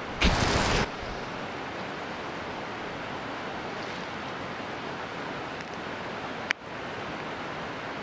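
Steady rush of falling water, with a brief louder surge of noise just after the start and a single sharp click about six and a half seconds in.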